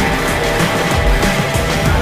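Loud background music with a heavy bass beat and regular drum hits.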